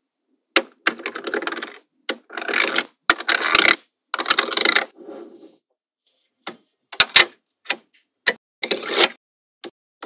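Small magnetic balls clicking sharply as they snap together, with several longer rattling clatters in the first half as strings of balls are handled.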